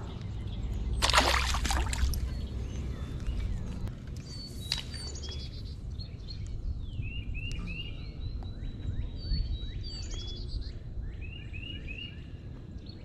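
Small songbirds chirping: short, hooked high notes in quick runs of three or four, repeating from a few seconds in, over steady outdoor background noise. A brief rush of noise about a second in.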